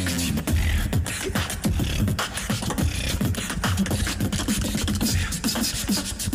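Tag-team beatboxing: a fast, steady rhythm of vocal kick and snare strokes over short sung bass notes.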